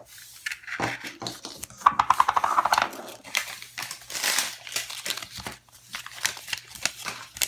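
Toy packaging crinkling and being torn open by hand, with a rapid ripping sound about two seconds in.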